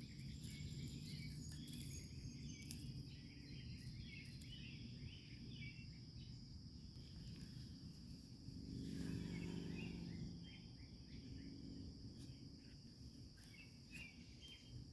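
Faint outdoor ambience: a steady high insect drone with many small bird chirps. A low hum swells briefly about nine seconds in.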